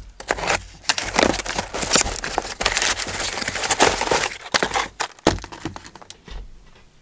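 Cardboard shipping box being opened by hand: flaps pulled back and a boxed package slid out, with scraping, rustling and crackling of cardboard and many small clicks. The handling noise fades about five seconds in.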